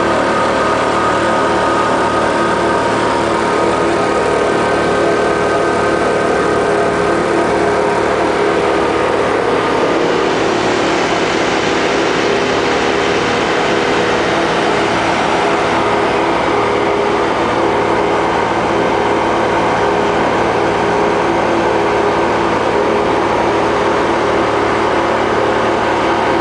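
Engines of a workover rig and its circulating pump running steadily under load, a loud continuous machine hum with many steady tones.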